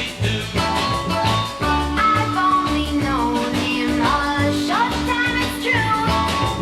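Early-1960s pop record: a band plays a steady beat under a held backing note, while a lead melody glides between notes.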